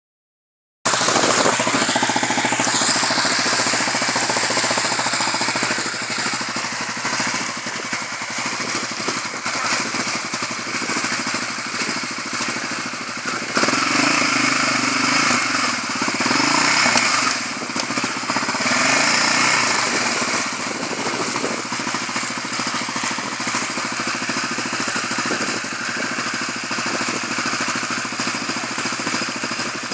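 Yamaha Raptor 700R quad's single-cylinder four-stroke engine running at idle, revved up louder in two stretches around the middle while the quad sits stuck in mud and water.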